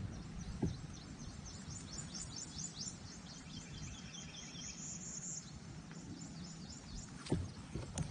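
A bird singing a rapid run of high chirps over a low background rumble, with a couple of sharp knocks near the end.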